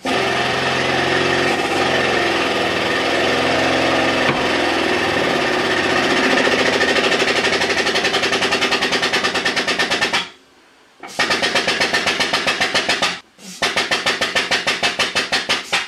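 Powered hydraulic pump driving a small screw press converted to hydraulics, pushing down on a rock-drilling grade tungsten carbide button. It runs with a fast, even pulsing of several beats a second, stops twice briefly and starts again, and cuts off near the end. No crack or pop from the button.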